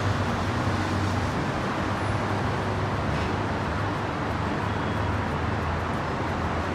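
Steady wash of city road traffic, with a constant low hum underneath.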